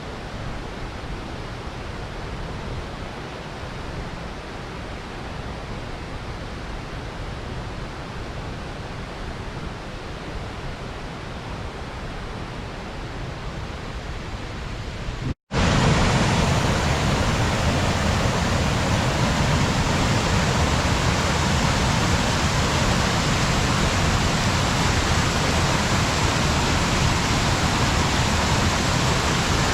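Water pouring over a small river dam, a steady rushing. About halfway through it cuts abruptly to a louder, fuller take of the same rush.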